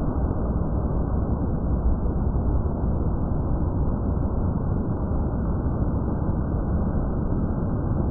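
Outdoor thunderstorm ambience slowed to a tenth of its speed: a steady, dull, deep noise with nothing high in it and no distinct crack or clap.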